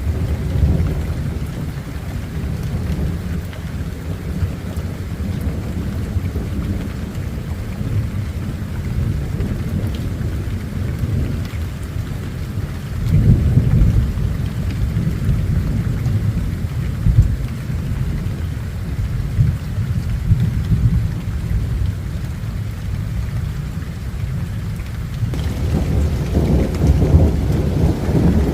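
Thunder rumbling continuously over steady rain, with a louder peal about halfway through and the rumble building again near the end.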